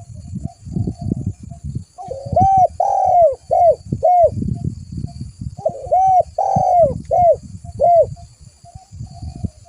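Spotted dove (tekukur) cooing: two phrases of several rounded coo notes, the first about two seconds in and the second about six seconds in, over a low rumble.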